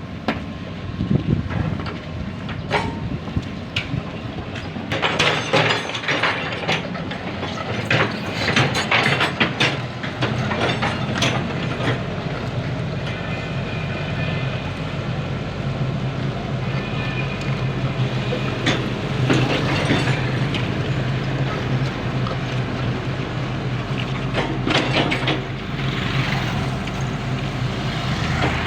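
Hydraulic excavator working: the diesel engine runs steadily under load while metal clanks and scrapes come in clusters. A thin high squeal rises above it around the middle.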